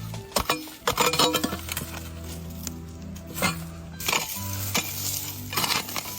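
Background music with steady low notes, over irregular sharp clinks and knocks.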